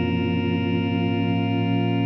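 Electric guitar held by an Electro-Harmonix freeze pedal as a sustained, organ-like drone, slowly morphing from one frozen chord into the next and settling into a steady chord near the end.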